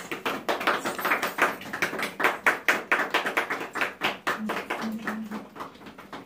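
A small group of people clapping, the applause thinning out and dying away near the end.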